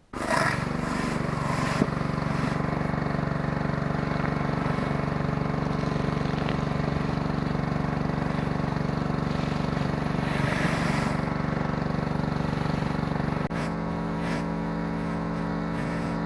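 Gas-engine pressure washer running under load, its spray hissing on the concrete driveway. The sound starts suddenly, runs steadily, and about 13 seconds in the engine note drops a little and settles.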